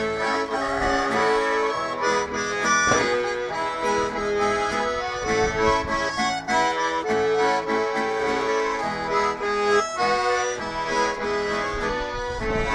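Accordion playing an instrumental break of a sertanejo song, a quick melody over held chords, with a strummed guitar beneath.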